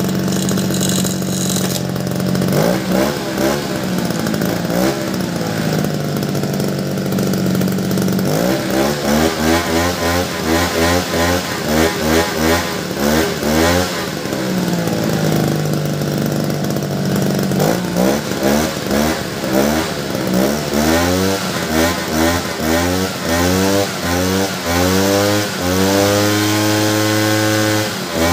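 Small petrol engine of a power sprayer running after carburetor repair: idling steadily at first, then revved up and down again and again with the throttle, in quick surges near the middle and longer climbs in pitch toward the end.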